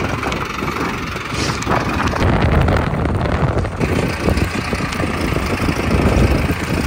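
Vehicle engine running steadily, with a heavy low rumble.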